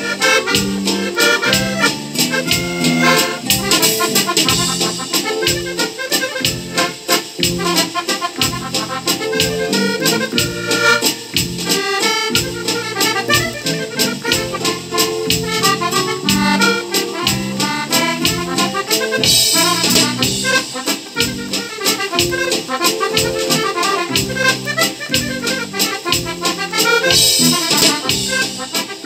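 Diatonic button accordion (organetto) playing a waltz melody over a backing track of drum machine, bass and synth guitar, with a steady beat.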